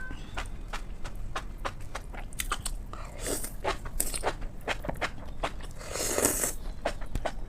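Close-miked chewing and biting of food: many short crunchy clicks, with a longer noisy sound lasting about half a second about six seconds in.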